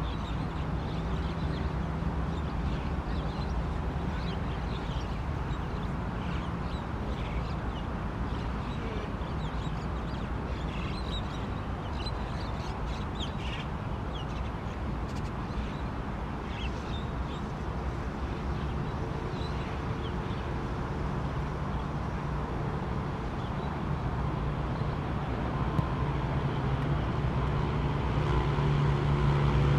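A steady low mechanical rumble with a hum, and a scatter of short high calls in the middle stretch; the rumble grows a little louder near the end.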